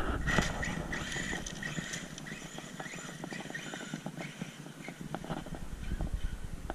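Traxxas Erevo 2.0 RC monster truck running: a short high electric motor whine and many small uneven clicks and crunches of the tyres and chassis on the ground, getting quieter.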